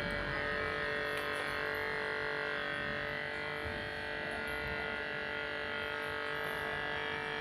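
Homemade 220-volt balloon-inflating compressor running with a steady electric hum, slowly filling a balloon with air.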